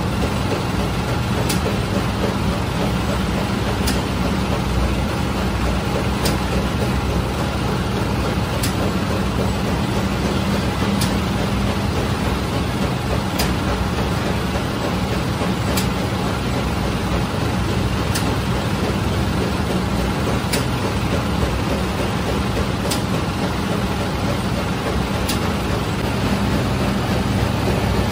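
Automatic flatbread baking machine running with a steady low hum, its conveyor carrying the baked bread out, and a short sharp click repeating about every two and a half seconds.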